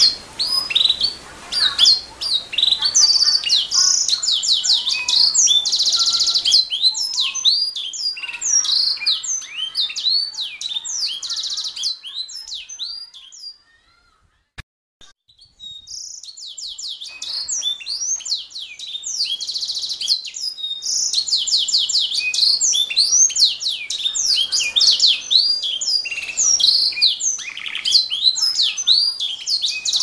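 Domestic canary singing: long runs of fast trills and rolling phrases of high chirping notes, with a break of about two seconds midway before the song picks up again.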